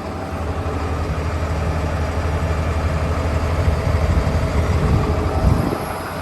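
Caterpillar D6M XL dozer's diesel engine idling steadily, a low, even hum.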